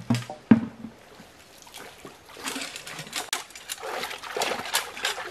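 Two dull thumps near the start, then water splashing and sloshing in irregular strokes as a scoop net is swept through a shallow, muddy pool.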